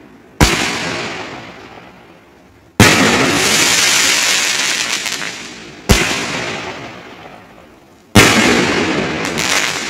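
500-gram fireworks cake firing aerial crackle shots: four sharp bangs two to three seconds apart, each followed by a fading wash of crackling. The crackle after the second bang, about three seconds in, stays loud for about two seconds.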